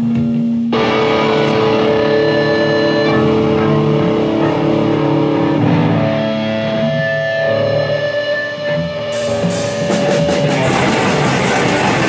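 Live rock band playing: electric guitars and bass holding long ringing notes over the drum kit. About nine seconds in, cymbals come in and the sound grows fuller.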